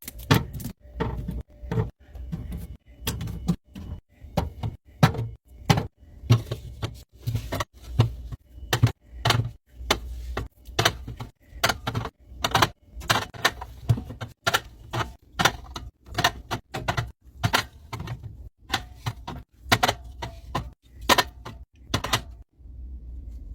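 Drink cans and bottles set down one after another while a fridge is restocked: a quick run of sharp clacks and knocks, about two to three a second, that stops shortly before the end.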